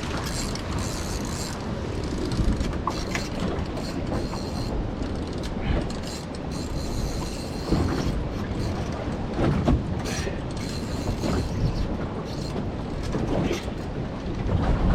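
Steady rumble of a small fishing boat on choppy water, with scattered clicks and knocks on board as a fish is being reeled in.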